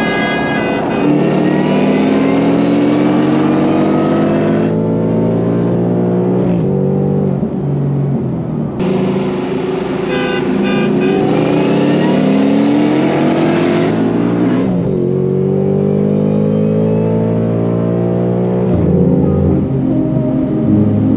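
Mustang V8 accelerating hard at full throttle. The engine note climbs steadily and drops back at each upshift, several times.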